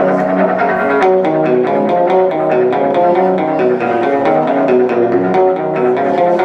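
Guitar music played through a looper: quick picked notes layered over a lower bass line, steady and continuous.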